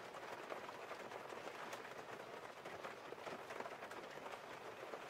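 Faint, steady hiss with many light crackles scattered through it.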